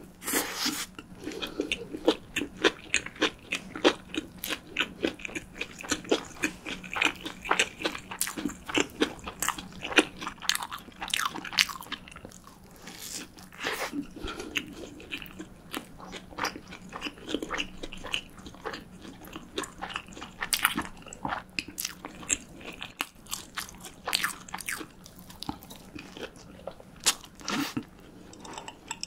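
Close-miked biting and chewing of a fried breaded cheese stick: the crisp coating crunches and crackles in quick, irregular bursts with each chew, along with wet mouth sounds.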